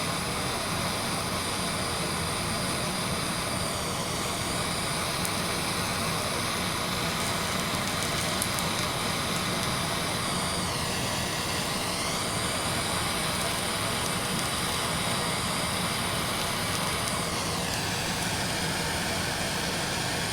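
Steady running noise of a motor or blower with a high whine, whose pitch dips briefly and recovers three times.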